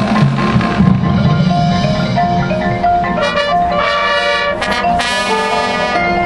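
Marching band music led by the front ensemble's mallet percussion, marimba and glockenspiel playing a ringing melodic passage, with drum strokes in the first second.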